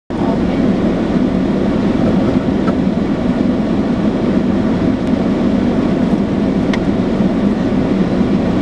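Steady car-cabin noise with no speech, from the car's running engine and the air in the cabin, with a few faint ticks.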